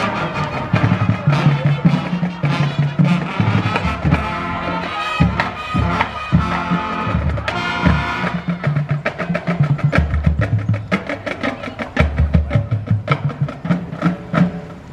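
High school band playing live on a pontoon boat: brass, with low sousaphone notes, over a steady drum beat. The drumming stands out more in the second half.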